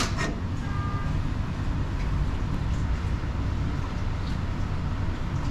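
Steady low rumble of kitchen background noise, with a couple of sharp clicks right at the start.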